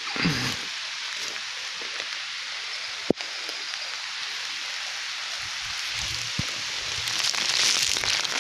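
Rain falling on an open fabric umbrella held overhead: a steady hiss that grows a little louder near the end, with one sharp click about three seconds in.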